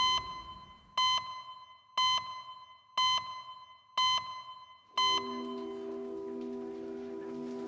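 Six short electronic beeps, one each second, each ringing briefly before fading, as a time-card clock ticks over. About five seconds in they give way to a steady, held music chord.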